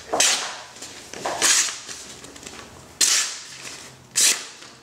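Stainless steel blade of a Schrade PH2W fixed-blade knife slicing through a sheet of printer paper in four quick strokes. Each stroke is a crisp, sudden rasp that fades quickly. The blade cuts through the paper cleanly, the sign of a very sharp edge.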